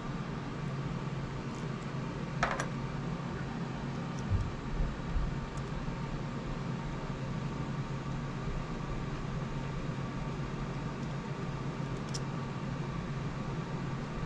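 Steady hum of a running fan, with a small click about two and a half seconds in and another near the end.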